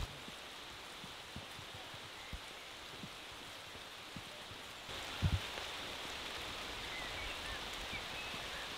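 Steady rain falling on the tea bushes and ground, an even hiss with scattered small drop ticks; about five seconds in the rain gets a little louder and there is a brief dull thump.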